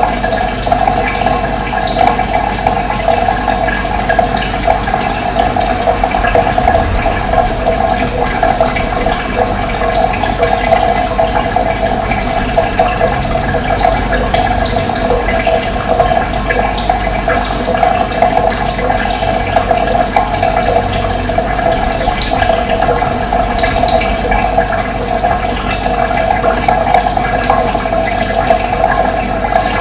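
Running water, a steady rushing flow, with occasional short bird chirps over it.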